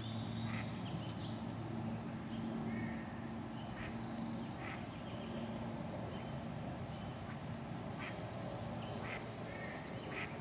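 Ducks quacking on and off, with short high bird chirps above and a steady low hum underneath.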